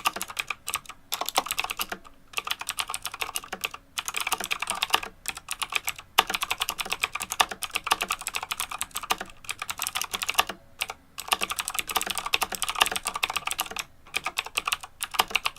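Fast typing on an EagleTec KG010 mechanical keyboard with clicky blue switches: rapid runs of loud, sharp key clicks, broken every second or two by a brief pause.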